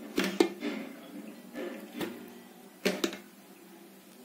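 A few light knocks and clicks of a metal utensil against an aluminium cooking pot as cooked rice is spread into it.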